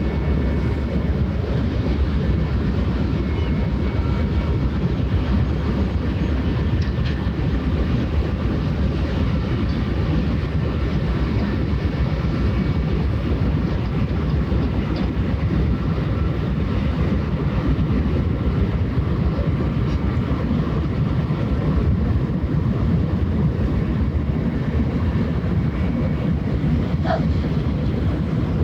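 Passing ship's diesel engine, a steady low drone with a faint machinery whine above it.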